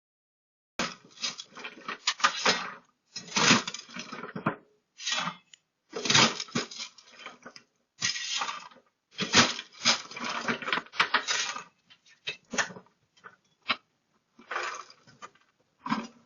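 Loose drainage stone clattering and rattling in irregular bursts of about a second each, with dead silence between them.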